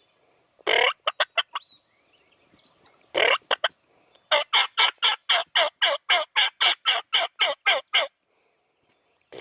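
Wild turkey calling: a gobble about a second in, another around three seconds in, then a long run of about seventeen quick, evenly spaced notes lasting some four seconds.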